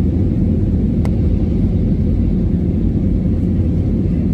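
Steady low rumble of an airliner's engines and rushing air, heard from inside the cabin as the plane climbs after takeoff, with a faint hum over it. A faint tick about a second in.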